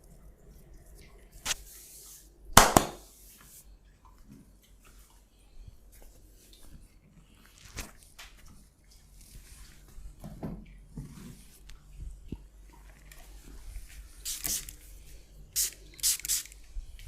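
Hands massaging skin: scattered rubbing and squishing sounds, with one loud sharp smack about two and a half seconds in and a few quick swishes near the end.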